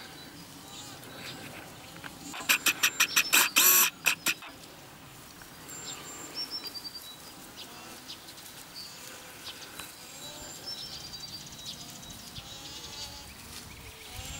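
Birds chirping and whistling on a pasture. About two and a half seconds in comes a loud animal call of about ten rapid harsh notes, ending in one longer note and lasting about two seconds.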